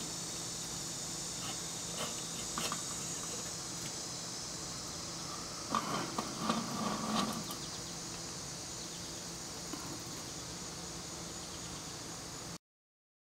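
A steady high-pitched insect chorus, with a few light metallic clicks about two seconds in and a cluster of clicks and scraping around six to seven seconds in as the kerosene lamp's chimney and wick knob are handled. The sound cuts out just before the end.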